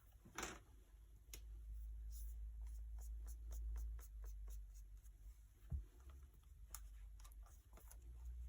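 Faint scattered light clicks and taps of small parts and tools being handled, with a short rustle about half a second in, a soft thud near six seconds, and a low hum underneath.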